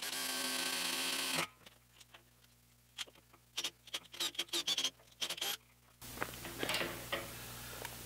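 Cordless drill running in one burst of about a second and a half, then scattered small clicks and taps. A steady low hum comes in about six seconds in.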